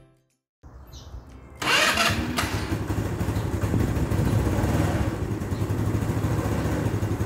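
SYM Jet Power 125 scooter engine being started: a short quieter stretch, then the engine catches about a second and a half in and settles into a steady idle. It is being run to idle right after a fresh engine oil change.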